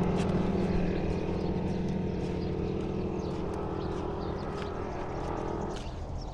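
A motor vehicle's engine running steadily, slowly fading, then cutting off about six seconds in, with a few faint clicks over it.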